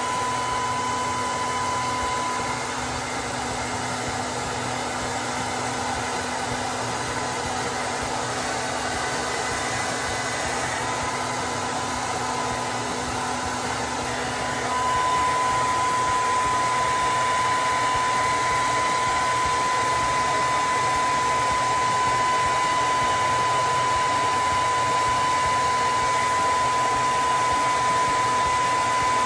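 Hand-held hair dryer blowing steadily to dry the spray put on to hold a lace wig, its motor whine a steady tone over the rush of air. It gets a little louder about halfway through and stays so.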